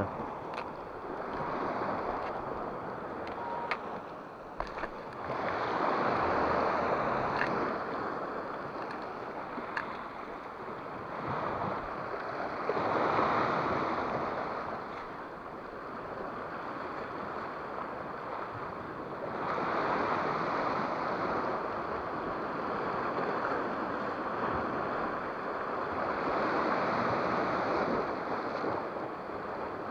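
Sea waves washing against shoreline rocks, the noise swelling and ebbing every few seconds, with wind on the microphone. A few small clicks come in the first ten seconds.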